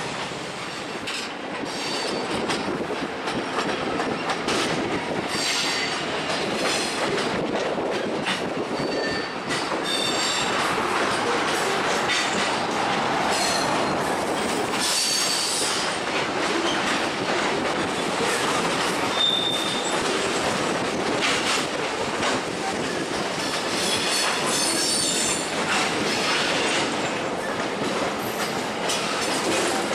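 Freight train of covered hopper cars rolling past: a steady rumble of steel wheels on rail with clicking over the joints, and short high-pitched wheel squeals again and again.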